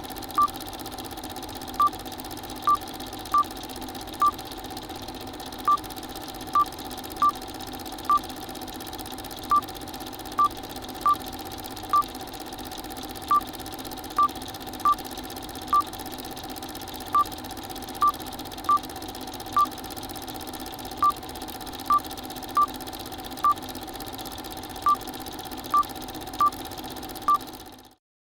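Film-overlay sound effects: a steady hiss with low hum, like worn film running, overlaid with short high 'blip' beeps of one pitch, roughly one a second in runs of three or four with brief gaps. Everything cuts off abruptly near the end.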